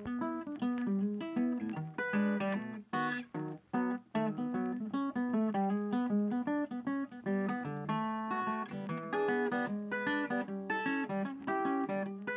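Background music: an acoustic guitar picking a quick run of plucked notes and chords.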